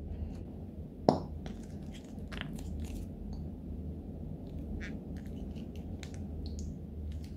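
Shaving cream squeezed from a plastic tube onto slime: scattered small squelching clicks and crinkles, with one sharp click about a second in.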